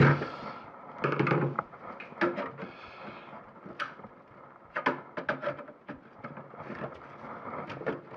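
Screwdriver prying at the plastic case of an HP Deskjet 930c printer, with scattered clicks, knocks and scrapes as the case's snap catches are worked loose.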